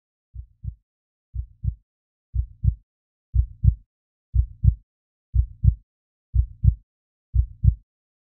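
Heartbeat sound effect: low double thumps, about one beat a second, growing louder over the first few seconds and then steady.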